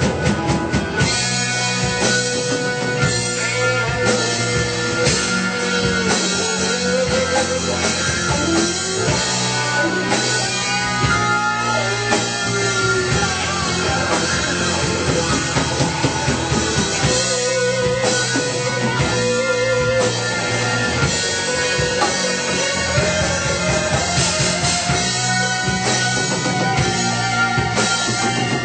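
Live rock band playing an instrumental jam: electric guitar, bass, drum kit and keyboard, with a lead line that bends and wavers in pitch over the steady band.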